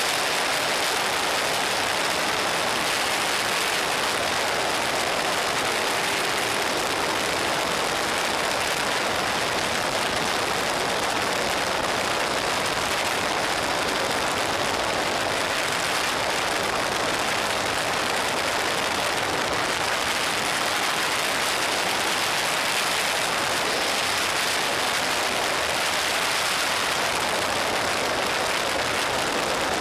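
Steady wind rush over a camera mounted on a Suzuki SV650 riding at road speed, with the motorcycle's V-twin engine running underneath.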